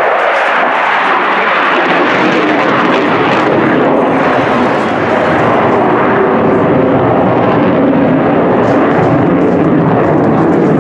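F-16 fighter jet's engine noise, loud and continuous, growing fuller and lower about two seconds in as the jet flies its display.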